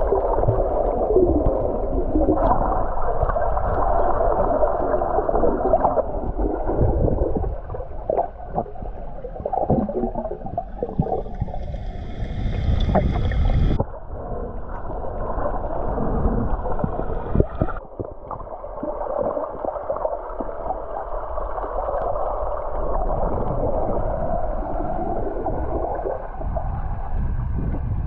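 Muffled underwater sound picked up by an action camera in a waterproof housing: water churning and bubbles around swimmers. It changes abruptly about halfway through and again a few seconds later.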